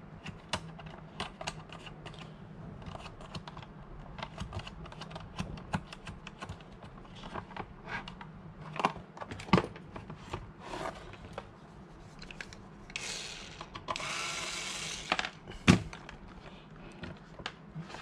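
Hands clicking and knocking wires, connectors and tubing inside a plastic enclosure that holds a 24 V RO booster pump, over a faint steady hum from the pump, still running. Near the end comes a rustling hiss of about two seconds, then a sharp knock.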